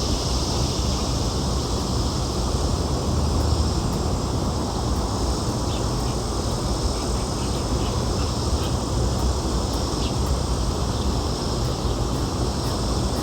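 A steady chorus of insects, crickets or similar, trilling as one constant high sound over a low, even rumble.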